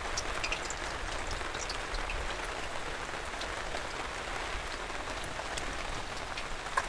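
Maggi-noodle-coated potato fingers deep-frying in well-heated oil in an iron kadai: a steady sizzle with fine crackles and pops.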